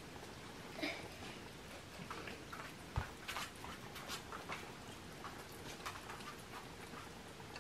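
Cats eating from food plates on the floor: a scatter of small clicks and crunches from chewing and plates knocking, with one thump about three seconds in.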